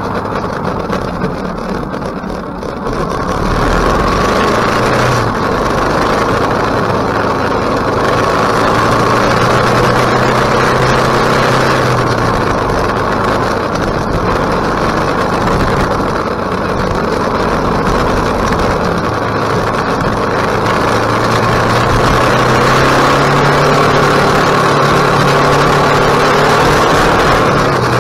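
KTM 1050 V-twin motorcycle engine running while riding, its note rising and falling with the throttle. There is a brief drop in loudness about two seconds in, and the pitch climbs steadily past the three-quarter mark.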